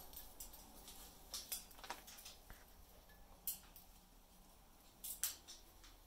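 Faint, scattered sharp clicks and taps, the loudest a pair about five seconds in, from a parrot's claws on the top of its metal cage as it steps about.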